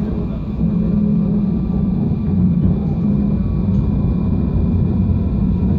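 Alstom RegioCitadis tram heard from inside the passenger cabin while running: a steady rumble with a low hum and a faint high whine.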